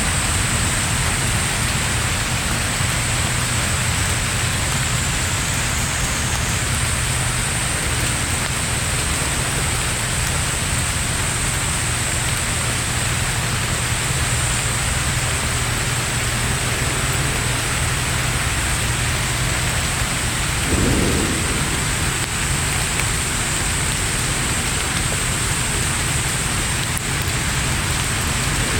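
Heavy rain falling steadily in a sudden downpour, with a brief low rumble about two-thirds of the way through.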